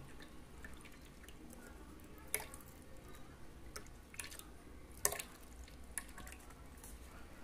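Faint trickle of table cream pouring in a thin stream from a carton into a plastic blender jar of milk. Three light clicks stand out, the sharpest about five seconds in.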